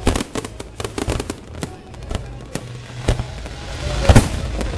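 Aerial fireworks going off in quick succession: many sharp bangs and crackles, with one louder bang about four seconds in.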